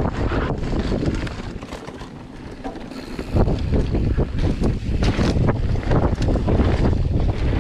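Mountain bike riding fast down a dirt trail: wind buffeting the microphone over tyre rumble, with the bike rattling and knocking over bumps. The noise eases about two seconds in, then comes back louder a little after three seconds in.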